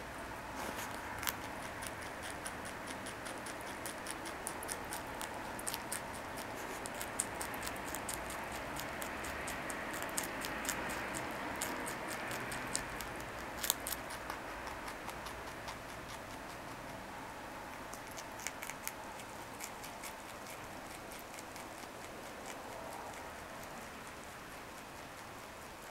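Pet rabbit chewing carrot tops: a fast run of small crisp crunching clicks over a steady hiss, densest through the middle and thinning out near the end.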